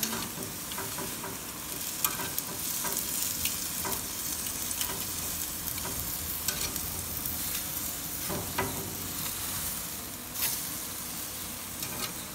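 Chicken pieces sizzling on a hot grill grate: a steady hiss with scattered short crackles.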